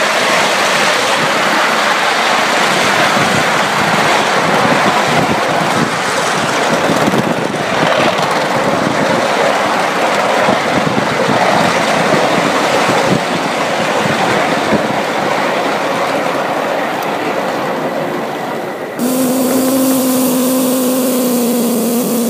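Ride-on live steam miniature Atlantic (4-4-2) locomotive running, heard from just behind it: a steady rush of exhaust and wheels clattering on the rails. About nineteen seconds in, a sudden loud rush of steam with a steady low tone sets in and holds to the end.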